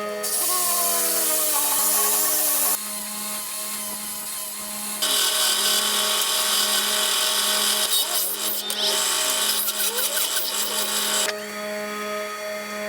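A power tool working the spike runs in two bursts, one of about two and a half seconds and a longer one of about six seconds, each starting and stopping abruptly, over a steady hum.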